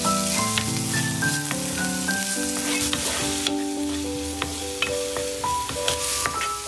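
Food sizzling as it fries in oil in a pan, being stirred, with scattered clicks of the utensil. Gentle background music plays over it.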